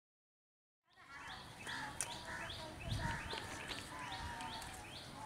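A bird calling a short, falling chirp over and over, about three times a second, starting about a second in, over outdoor background noise with faint voices.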